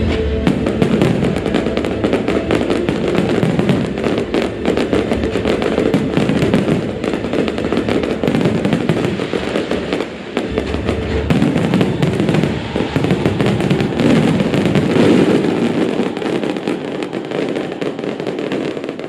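Aerial fireworks going off in a dense, rapid barrage of bursts and crackles, with music playing underneath.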